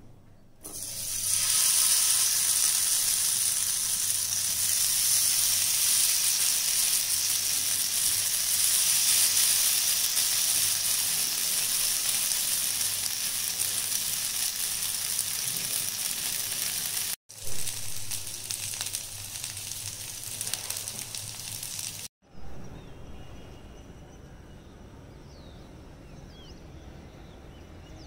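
Paneer, capsicum and onion skewers sizzling in hot oil on a grill pan, a steady hiss. It drops out briefly about two-thirds of the way through, comes back weaker, then gives way to a much quieter background for the last few seconds.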